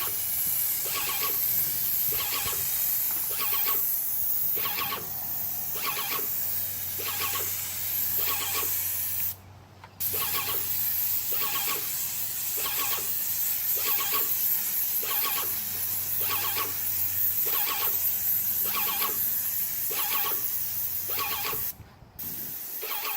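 Titan 440 airless paint sprayer at about 3,200 psi, hissing steadily through a 211 tip, with a squeal repeating a little more than once a second. The hiss breaks off briefly twice, about nine seconds in and near the end.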